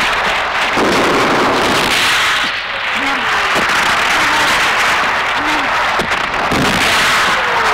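Battle sound effects from an old war film: a few sharp gunshot-like cracks over a dense, steady wash of noise, with brief indistinct voices.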